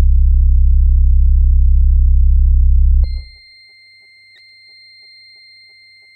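Minimal electronic music: a loud, low droning tone with a stack of overtones cuts off suddenly about three seconds in. A quiet, steady high sine tone follows, with faint regular ticking and a single click partway through.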